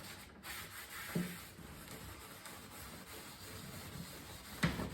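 A cloth rubbing beeswax polish into the bare pine wood of an old dresser, a soft, faint swishing with small rustles. A brief louder sound comes near the end.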